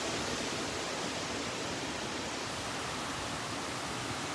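Steady rushing noise of a severe storm: strong wind through the pine trees together with rain.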